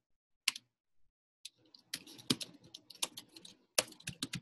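Typing on a computer keyboard: a few separate key presses, then a quick, irregular run of keystrokes from about a second and a half in.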